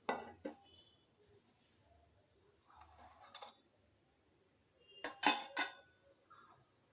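Kitchen utensils clinking as boiled herbal kadha is strained: two sharp clinks at the start, a softer scrape-and-clink around three seconds in, and three quick ringing clinks about five seconds in.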